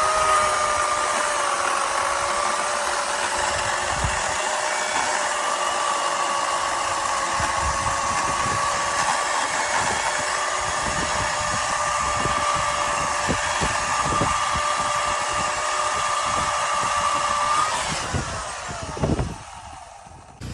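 Craftsman 16-inch, 12-amp corded electric chainsaw's motor running at a steady whine, then released about 18 seconds in and winding down in pitch.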